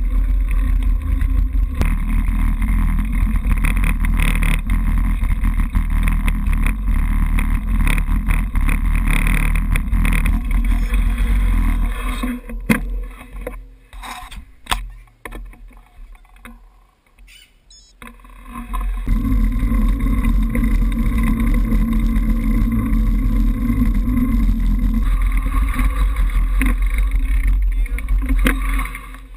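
Wind buffeting the microphone of an action camera on a moving bicycle, a steady low rumble mixed with road noise. It falls away for several seconds in the middle while the bike is stopped, leaving only a few faint clicks and knocks, then comes back as riding resumes.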